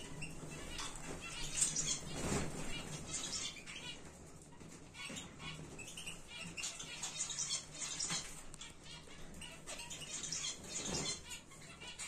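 Canaries and goldfinches in an aviary fluttering their wings in short flights, with short high chirps scattered throughout. The loudest flutters come about two seconds in and again near the end.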